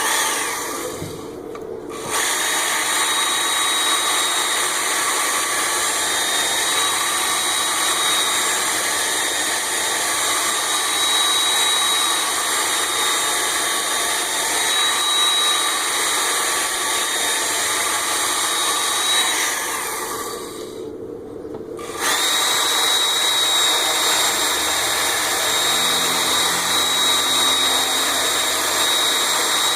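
Ken Onion Edition Work Sharp belt sharpener running with its fine 6K polishing belt against an axe edge: a steady motor whine with a thin high tone. It starts about two seconds in, cuts out for about two seconds two-thirds of the way through, then runs again.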